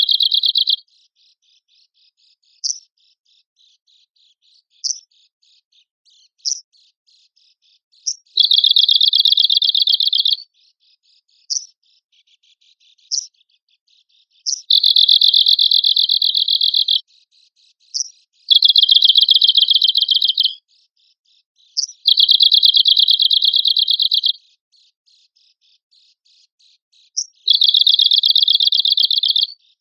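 Arctic warbler singing: fast, dry, buzzy trills about two seconds long, repeated about every four seconds, with single short sharp call notes in the gaps.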